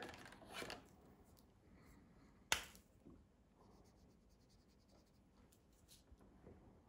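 Mostly near silence while a washable felt-tip marker is handled: picked out of its cardboard box and uncapped, with one sharp click about two and a half seconds in and a few faint clicks and light rubbing around it.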